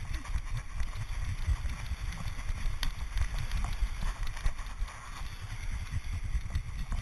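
A running pug's footfalls and body jolts picked up by a camera strapped to its back: a fast, uneven thudding, with wind on the microphone and a steady hiss of surf behind.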